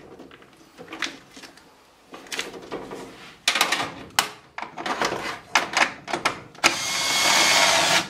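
Sharp clicks and knocks of tool handling at the furnace, then, near the end, a cordless drill with a quarter-inch nut driver bit runs steadily for about a second, removing a draft inducer mounting screw.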